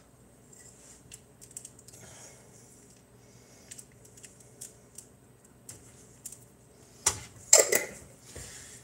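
Light, scattered clicks and taps of a container being handled while grated Parmesan is added, then a louder clatter and scrape about seven seconds in as the container's lid is picked up off the stovetop.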